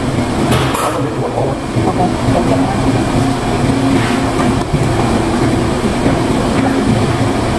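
Steady droning hum of air conditioning and ventilation blowing through ceiling vents, with a brief hiss about half a second in.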